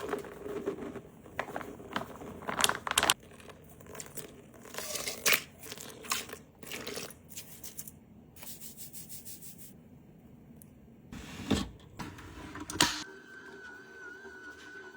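Kitchen handling noises: a run of clicks, knocks and rustling, with a steady high-pitched tone and low hum setting in near the end.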